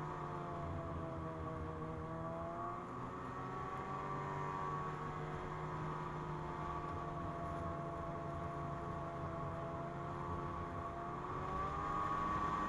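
Ski-Doo MXZ snowmobile's 600 carbureted two-stroke engine running under way, its pitch easing off early on, climbing back a few seconds in, easing again through the middle and rising near the end.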